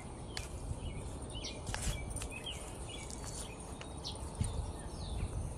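Small birds chirping in short, scattered calls, with a few sharp clicks over steady low background noise.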